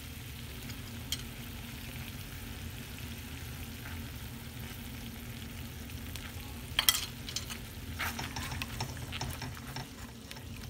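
Soy-and-sugar sauce bubbling and sizzling steadily in a wok. There is one sharp clink about seven seconds in, then a spatula stirring and scraping the pan near the end.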